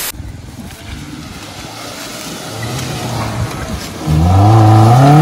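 Maruti Suzuki Gypsy's engine labouring up a muddy off-road climb, its pitch slowly rising; about four seconds in it suddenly gets much louder as it is revved hard, the pitch climbing further.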